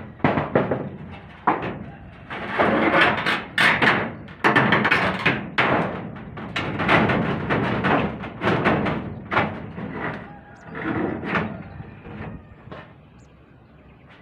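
Corrugated metal roofing sheets banging and rattling as they are worked with a claw hammer and handled loose: a dense run of knocks and clattering that dies down near the end.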